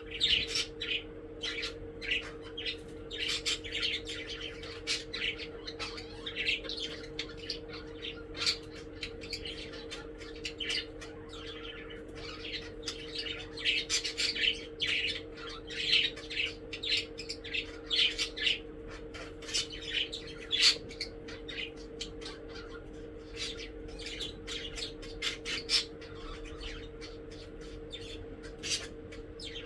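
Budgerigars chirping and squawking: a dense run of short, sharp calls that goes on without a break. A steady low hum sits underneath.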